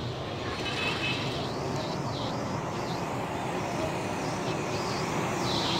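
Steady road traffic noise: a continuous hum of motor vehicles on a busy street, with no single vehicle standing out.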